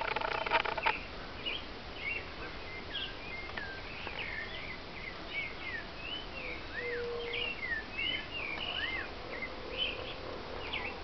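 Several small birds chirping and calling, a scatter of short high chirps and a few arched whistled notes, with a brief louder noise in the first second.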